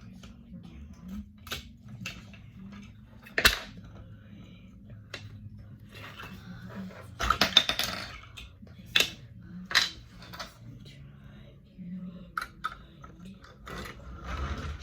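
LEGO bricks clicking and clattering as they are handled: a sharp click about three and a half seconds in, a rattling run of clicks around seven to eight seconds, and a few more single clicks after.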